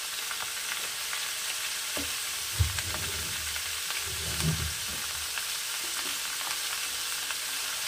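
Chopped vegetables sizzling steadily in hot mustard oil in a kadai over a high gas flame, with scattered small pops and crackles.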